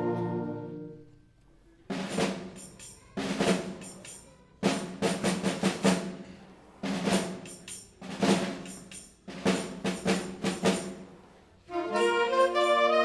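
A concert band's held brass chord dies away, then the percussion section plays a series of short drum figures, clusters of quick hits and brief rolls with small pauses between them. Near the end the full band with brass comes back in.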